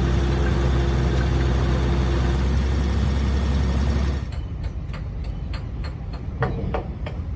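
A large engine running steadily with a deep hum, cutting off abruptly about four seconds in; after it, a series of sharp taps or knocks, two or three a second.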